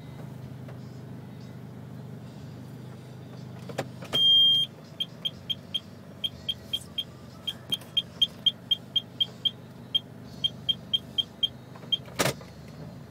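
Steady low hum of a car idling, under a string of short, high electronic beeps in irregular runs, about three or four a second, that follow one longer beep. A sharp click comes near the end.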